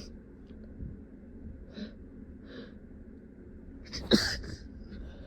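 A person's sneeze, held back and stifled, about four seconds in. It is preceded by a few short, hissing intakes of breath as the sneeze builds.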